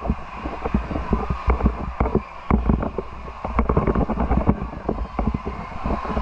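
Wind buffeting a handheld camera's microphone as it is carried along, a low pulsing rumble, with many irregular short knocks and taps from handling.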